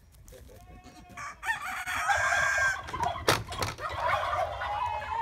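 Farm animal calls: a loud pitched call with several overtones starts about a second and a half in, with a sharp knock near the middle and a long steady held note near the end.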